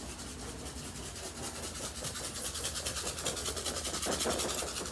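Dry rice being shaken out and scattered onto the floor: a light, fine rattling hiss in quick, even pulses.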